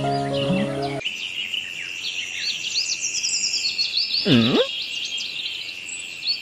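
Birds chirping and tweeting over a steady, high insect drone, likely crickets. There is one short swooping call about four seconds in. A low held sound with several steady notes ends about a second in.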